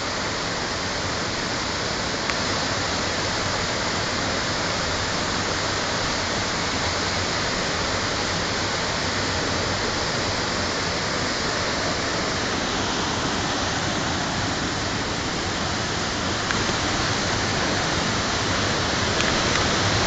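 A waterfall pouring into a rock pool: a steady, unbroken rush of falling water.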